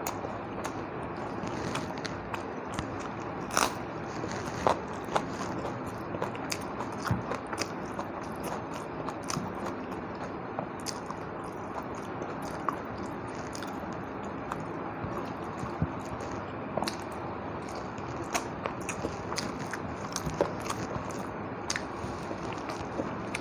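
A person eating close to the microphone: chewing and biting, with many short sharp clicks and crunches scattered throughout.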